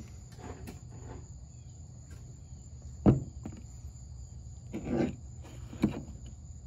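Fossil clam specimens filled with calcite crystals knocking against a hard wet surface as they are handled: one sharp clack about three seconds in and lighter knocks around five and six seconds. A faint steady high whine runs underneath.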